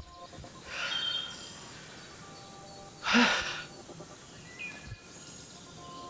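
Two heavy breaths out by a man, a softer one about a second in and a louder one about three seconds in, over faint music of held tones.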